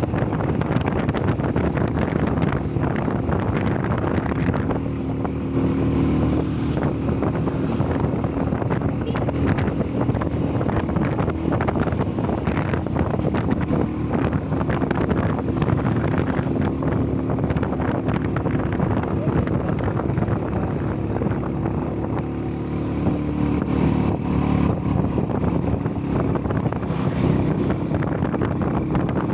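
Wind rushing over the microphone while riding pillion on a moving motorcycle, with the motorcycle's engine running steadily underneath.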